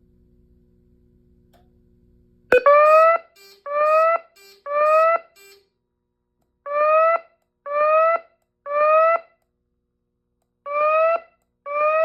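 Fire alarm speakers driven by a Simplex 4003 voice control panel sounding the alert tone: short rising whoop tones in groups of three, a temporal-3 pattern, with a pause between groups. A low electrical hum stops with a sharp click about two and a half seconds in, as the tone starts.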